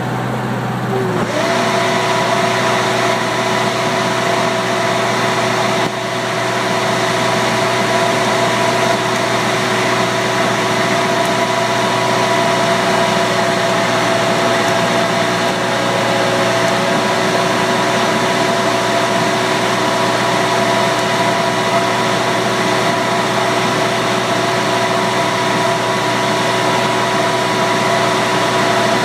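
Blower fan's motor running steadily with a constant hum over a rush of air, its pitch rising as it comes up to speed about a second in.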